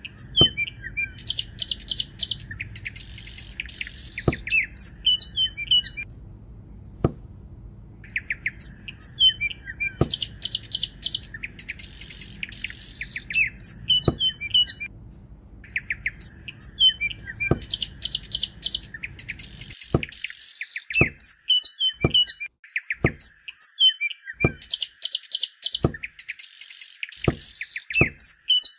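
Songbirds chirping and twittering in a repeating pattern that starts over about every seven to eight seconds, with short gaps between, a looped birdsong track. Light sharp clicks sound every second or so and come closer together near the end.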